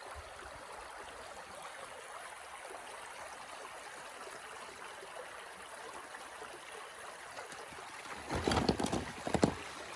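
Shallow stream flowing steadily over rocks. A few louder, uneven sounds break in about eight seconds in and last about a second and a half.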